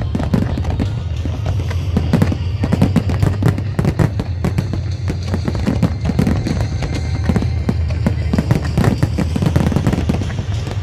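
A fireworks display firing a dense, continuous barrage of bangs and crackling bursts, with music playing beneath.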